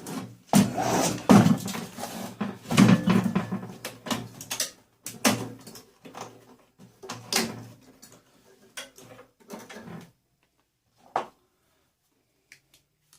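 Knocks and clatter of metal parts being handled and pulled about as a microwave oven is stripped for scrap, in an irregular run for about ten seconds, then one more sharp knock after a short pause.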